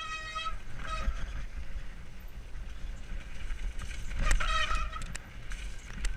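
Mountain bike descending a rough dirt trail at speed: a steady rumble of wind and tyres on the ground, with a few sharp knocks over bumps. The brakes give short, steady squeals at the start, about a second in, and again about four seconds in.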